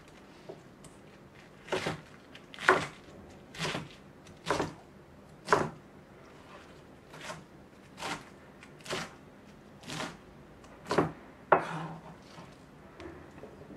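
Kitchen knife cutting through a wedge of cabbage on a plastic cutting board: about a dozen separate cuts, roughly one a second, starting a couple of seconds in and stopping near the end.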